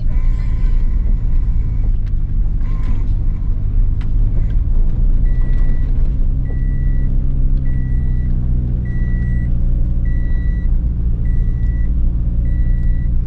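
Car engine and road rumble heard from inside the cabin while driving slowly. About five seconds in, a short high electronic beep starts repeating evenly, about once every 1.2 seconds.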